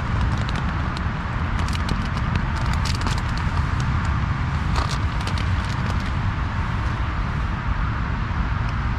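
Steady low rumble of road traffic, with scattered small clicks and crackles over it.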